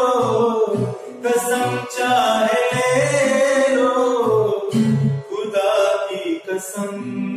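A man singing long, drawn-out melodic lines of a Hindi film song, accompanied by his own strummed acoustic guitar.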